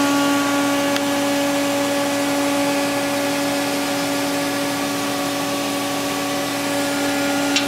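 Haas SL30T CNC lathe running, heard at its open rear electrical cabinet: a steady machine hum with a strong even tone and several higher overtones over a haze of fan-like noise.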